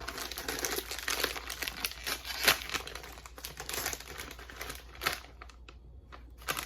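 Potato chip bag crinkling as it is handled and opened, dense at first and thinning to a few scattered crackles near the end.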